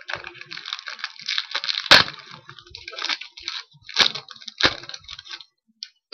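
Trading-card pack wrapper crinkling and tearing as it is opened, with several sharp cracks of the wrapper about two and four seconds in and again at the end.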